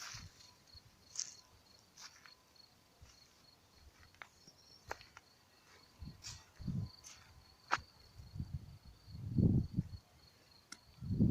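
A cricket chirping in a high, even, rapid pulse throughout, with scattered clicks and a few low thuds, the loudest about nine and a half seconds in.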